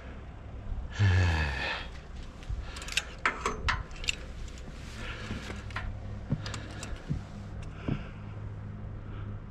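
A man's loud, breathy sigh with falling pitch about a second in, from the effort of working on a steel lattice antenna tower. It is followed by a scattering of sharp clicks and knocks as he shifts his grip and gear on the tower, over a low steady hum.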